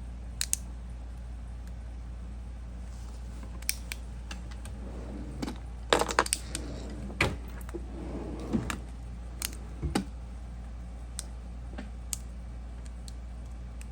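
Stainless steel fidget slider being worked by hand, its metal plates clicking and clacking in irregular sharp clicks, several in quick succession about six seconds in.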